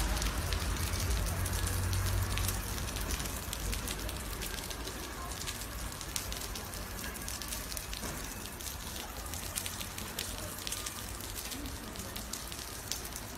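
Rain falling: a steady hiss dotted with many small drop ticks, with a low rumble that is strongest in the first couple of seconds.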